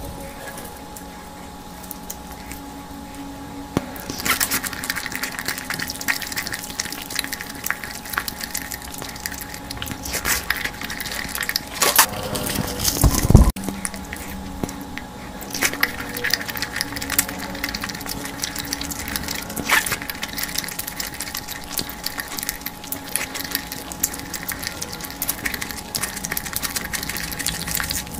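Close-miked eating by hand: wet chewing and lip smacking of fried puri dipped in curry gravy, with fingers squelching in the sauce. A louder thump comes about thirteen seconds in.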